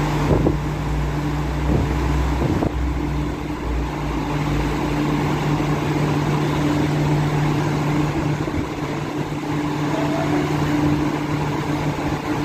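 Steady air-conditioning hum: a constant drone with a low rumble beneath it, and two faint knocks in the first three seconds.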